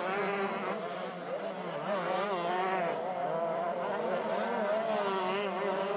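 Several 125cc two-stroke motocross bikes racing together, their engines revving hard with overlapping pitches that rise and fall as the riders work the throttle.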